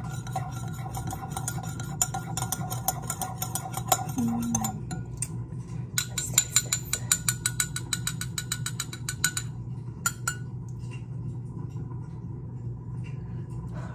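Metal spoon stirring coffee in a ceramic mug, clinking against the inside of the mug. The clinks come in a quick, even run for a few seconds past the middle, then stop.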